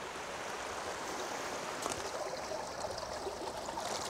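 Shallow mountain stream running over stones, a steady rushing of water, with a few faint clicks and rustles from about two seconds in.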